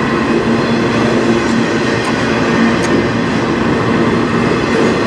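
Empty freight flatcars rolling past: a steady, loud rumble of steel wheels on rail with a constant humming ring under it, and a couple of faint high clicks about two and three seconds in.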